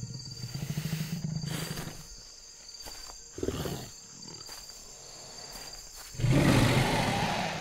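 Dinosaur film sound effects of a tyrannosaur: a low growl at the start, a short grunt about three and a half seconds in, and a loud open-mouthed roar near the end.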